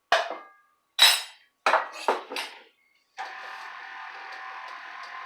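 Five sharp clinks of a measuring cup knocked against a mixing bowl to empty the last of the flour, then an electric mixer starts about three seconds in and runs steadily, beating the flour into the cake batter.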